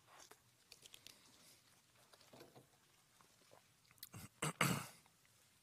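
Faint sipping and swallowing from a plastic water bottle, with small clicks and handling noises, then a short, louder rustle about four and a half seconds in.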